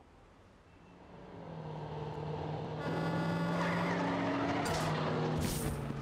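An armored truck approaching and growing louder over the first few seconds, its engine running with a steady whine. Near the end come two sharp knocks as money sacks land on the sidewalk.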